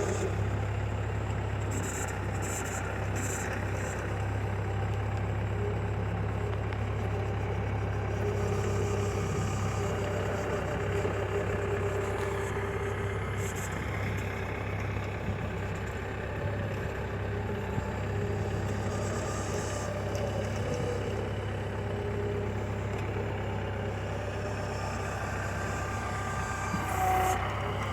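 Backhoe's diesel engine running steadily at low speed, with a brief louder moment near the end.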